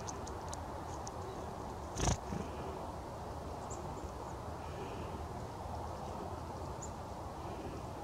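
Steady low rumble of outdoor background noise with faint, short high chirps here and there from small birds, likely black-capped chickadees, and one brief loud whoosh about two seconds in.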